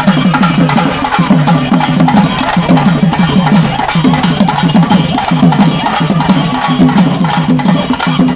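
Chenda melam festival drumming: a percussion ensemble playing a fast, dense rhythm of sharp stick strokes over a repeating low drum pulse.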